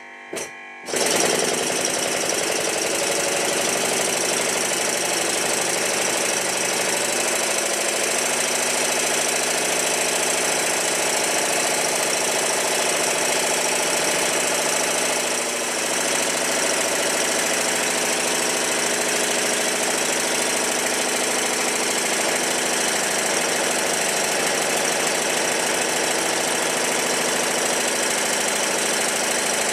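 Stuart triple expansion model steam engine running, a steady dense mechanical noise from its many moving parts, made louder by the workbench it stands on, which acts as a soundboard. It starts about a second in. The engine is in its running-in period, nearing completion.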